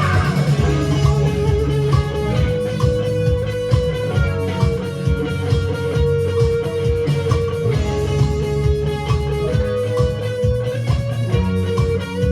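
Live rock band playing an instrumental passage between sung lines: guitar over bass and drums, with a steady beat.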